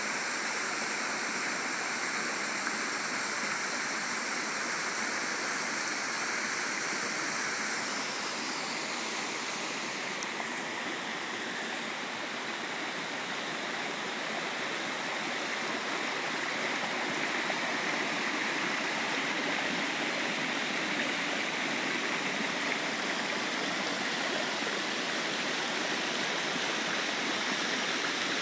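Waterfall and cascading stream: a steady rush of water falling over rock steps, growing a little louder in the second half.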